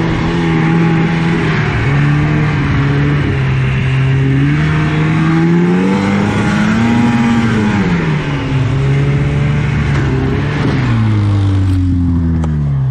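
1983 Yamaha SS 440 snowmobile's two-stroke engine at racing speed, heard from on the sled, its revs climbing and dropping with the throttle over a steady rush of track and wind noise. Near the end the revs slide down as the sled slows.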